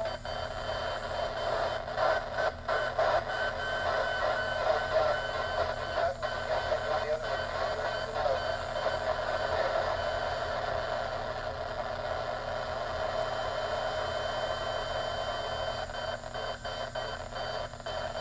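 Receiver audio from a Yaesu FT-891 on a 10-metre FM repeater channel: static hiss with several steady interfering tones, and scattered crackles. The tone is really loud; the operator suspects another distant repeater, or someone jamming, is coming through on the channel.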